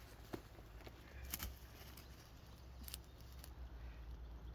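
A few sharp clicks and snaps of wooden sticks being handled, about three in all, over a low steady outdoor rumble.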